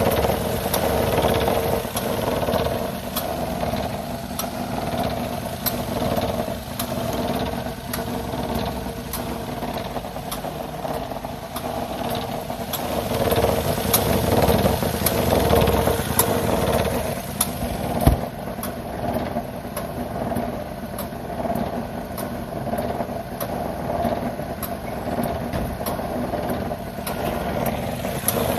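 Daihatsu Tanto L375S's 660 cc three-cylinder engine idling in the engine bay, with a repeated clicking sound that the owner attributes to the air conditioning and treats as an abnormal noise. One stronger knock comes about two-thirds of the way through.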